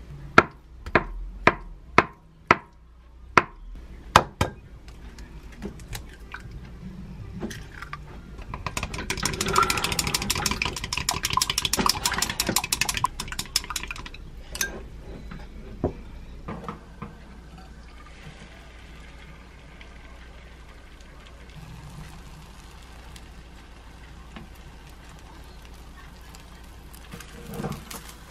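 A kitchen knife cutting a block of tofu on a wooden cutting board: about eight sharp knocks in the first four seconds. Then an egg beaten fast with wooden chopsticks in a glass cup, a rapid clicking for about six seconds, the loudest part. In the latter part, a faint steady sizzle of beaten egg cooking in a pan.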